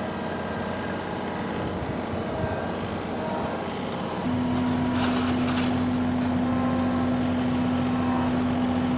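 John Deere compact tractor diesel engines running. About four seconds in the sound becomes louder, a steady engine drone with a constant hum, as a small compact tractor works close by with its loader grapple.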